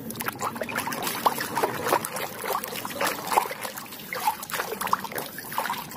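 Water splashing and sloshing in a plastic tub as a hand rubs and scrubs a plastic toy underwater, with many quick irregular splashes and drips.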